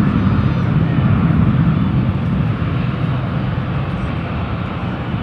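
Airbus A319 jet engines at takeoff thrust: a loud, steady rumble, easing off slightly over the last couple of seconds.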